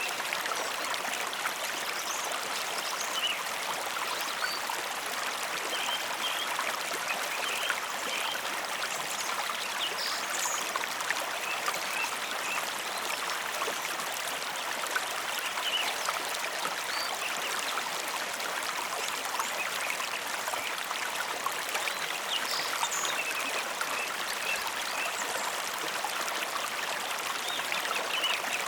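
A mountain river flowing steadily: an even rush of water, with brief higher splashes and trickles scattered through it.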